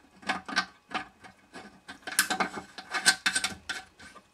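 Metal rod of a basin pop-up drain scraping and clicking against the drain parts as it is fitted back into place: a run of short, irregular rubbing and ticking noises, busiest about two to three and a half seconds in.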